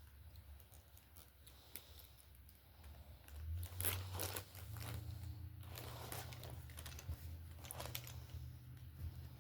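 Faint clicks and scrapes of small metal fishing tools being handled, as a split ring is worked open with split-ring pliers, over a steady low hum.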